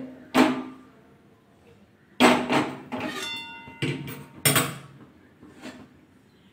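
Metal cookware and utensils knocking and clanking, about half a dozen separate sharp knocks. One knock, about three seconds in, is followed by a brief metallic ringing.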